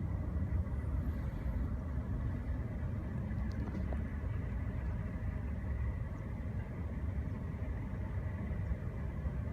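Steady low engine rumble with a faint high whine.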